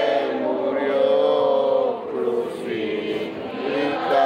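Voices singing a slow, drawn-out hymn or chant, holding long notes and sliding between them, with a brief dip in the singing about halfway through.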